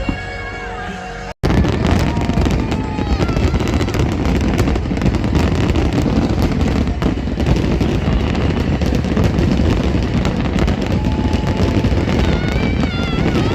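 Music for about a second and a half, then after an abrupt cut a loud, dense crackling of fireworks bursting over a low rumble, with a few voices faintly heard near the end.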